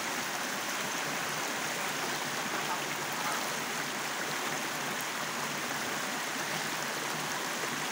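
Shallow rocky forest stream running over stones and small rapids: a steady, even rush of water.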